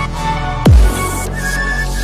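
Electronic background music in a dubstep style; about two-thirds of a second in, a loud deep bass hit with a fast falling pitch sweep.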